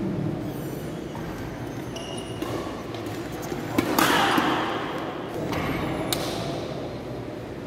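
Badminton rackets hitting the shuttlecock in a doubles rally: sharp cracks every second or so, the loudest about four seconds in, over a murmur of voices echoing in the sports hall.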